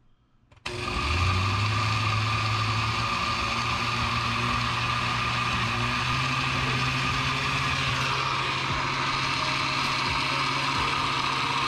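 Countertop blender switching on suddenly and running steadily, blending frozen fruit, banana, yogurt and soy milk into a thick smoothie. Its motor hum shifts in pitch during the first couple of seconds, then holds.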